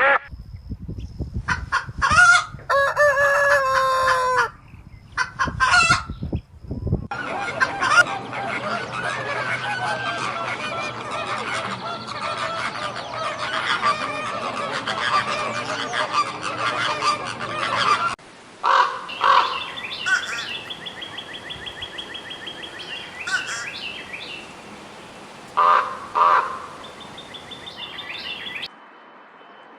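Bird calls in three recordings cut together. First come a few loud, separate pitched calls. About seven seconds in, a dense chorus of many birds calling at once begins. Around eighteen seconds in, it changes to sparser repeated calls, which stop shortly before the end.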